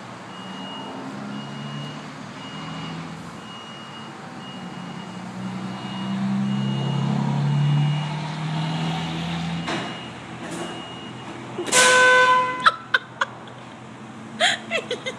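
Low machine hum in a car wash bay, swelling in the middle, under a faint beep repeating about twice a second. About twelve seconds in, a vehicle horn honks once for about half a second, followed by a few short toots and clicks.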